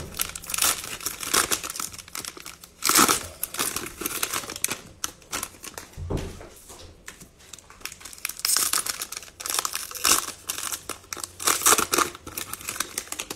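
Plastic cello-pack wrappers of trading cards being torn open and crinkled in the hands: an irregular run of crackles and rips.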